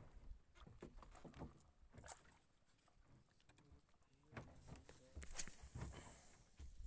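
Near silence with a few faint, scattered clicks and knocks.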